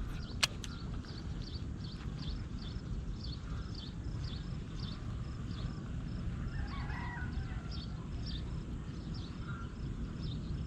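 An animal calling in a steady run of short, high chirps, about two to three a second, over a low steady rumble. A sharp click comes just after the start.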